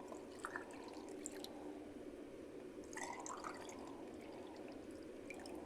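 Faint water dripping and trickling, with scattered small ticks and clicks.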